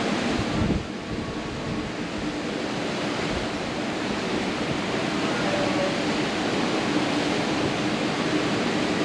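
Steady rushing noise of wind on the microphone mixed with ocean surf. Level dips briefly about a second in.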